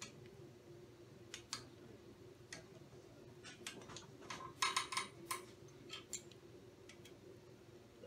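Light, irregular metal clicks and taps of hand tools and parts as the mini valve on a pneumatic power hammer is worked on, with a quick run of louder clicks about halfway through, over a faint steady hum.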